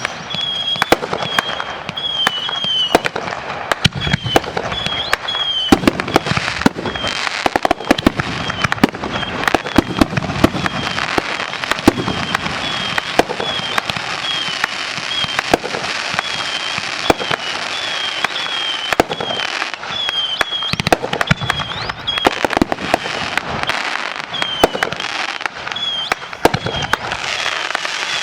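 Finale of a consumer aerial firework show: rapid, overlapping bangs of shells bursting, with continuous crackling between them.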